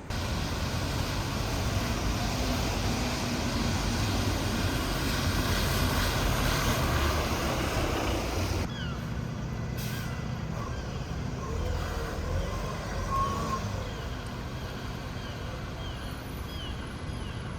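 A train running, with steady rumbling vehicle noise. About nine seconds in the sound cuts abruptly to a quieter stretch of the same kind, with faint short chirps near the end.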